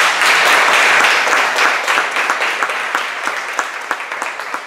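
An audience applauding: many hands clapping, strongest in the first second or two and then slowly dying down.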